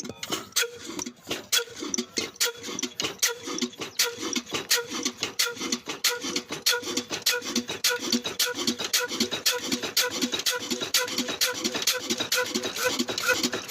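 Old black single-cylinder diesel engine running steadily, with an even beat of about two exhaust puffs a second and a sharp knock on each stroke over a steady hum.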